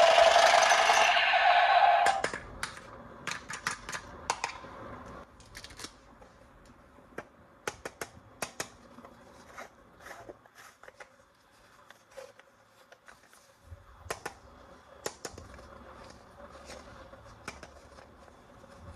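A loud motor-like buzz stops about two seconds in. It is followed by scattered light clicks and taps of plastic toy parts and packaging being handled.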